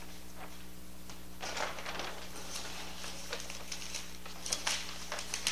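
Paper and vinyl stencil backing sheets being handled and pulled, making irregular crinkling and rustling in two spells, over a steady low hum.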